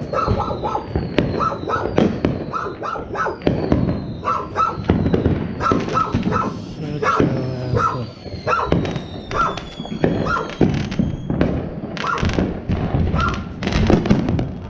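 Consumer fireworks going off all around: a dense run of bangs and crackles, with several long whistles that fall in pitch. A dog barks repeatedly through them.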